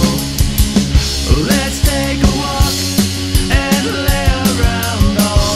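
Studio-mixed punk/grunge-style rock song: a drum kit plays a steady driving beat of kick, snare and cymbals under loud bass and guitars.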